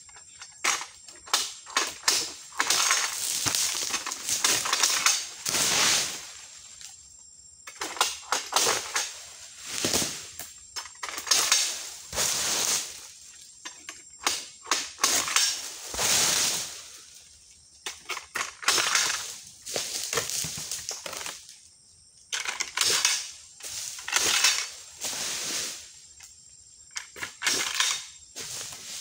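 A hooked egrek sickle on a long pole is jerked through oil palm frond stalks, giving groups of sharp cracks followed by a second or two of tearing and rustling as the fronds are cut. The strokes come in bouts every few seconds with short quiet gaps between them.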